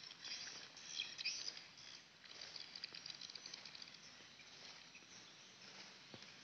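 Faint rural outdoor ambience: high chirps around a second in, then a rapid ticking trill for about a second.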